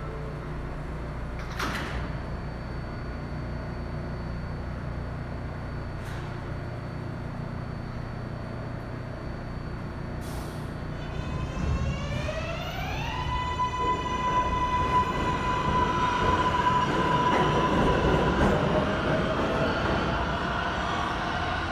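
Kawasaki R188 subway train sitting at the platform with a steady low hum, then a short hiss about ten seconds in. The train pulls out: its traction motors give a whine that climbs in pitch and settles into a steady tone, and the running noise grows louder as it speeds up.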